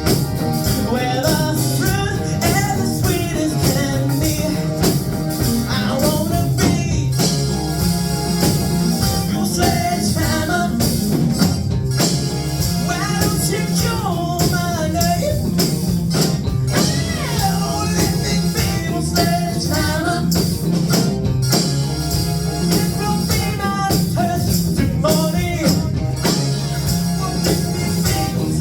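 A song playing: a singing voice over a full band with a steady beat.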